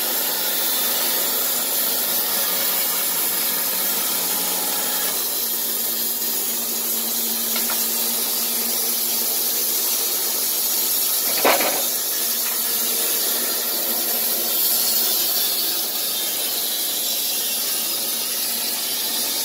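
Wood-Mizer LT15 band sawmill running on its electric motor: a steady hiss and hum from the motor and blade, with the hum shifting about five seconds in. A single sharp knock comes about eleven seconds in.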